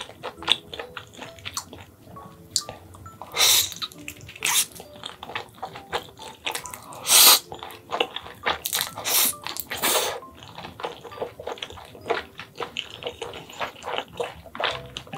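Close-miked eating of spicy instant fried noodles: several loud slurps of noodles in the middle, the longest and loudest about seven seconds in, with wet chewing clicks throughout.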